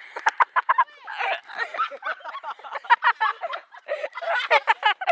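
People laughing hard in quick, repeated bursts just after an air horn prank, the laughter thickest near the end.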